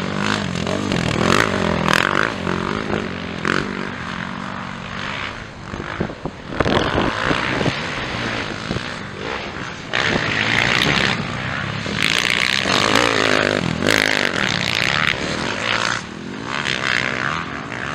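Motocross dirt bike engines revving hard and backing off over and over as the riders go through corners and over jumps, with the pitch rising and falling.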